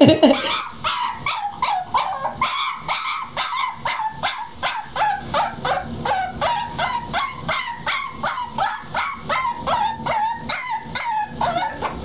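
A puppy yipping in a rapid, unbroken string of short high yips, about four a second, each one dropping in pitch.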